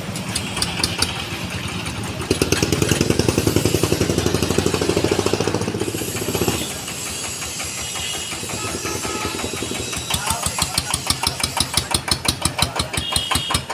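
An engine running with an even chugging beat. It grows louder for a few seconds about two seconds in, then settles to sharper beats of about five a second near the end.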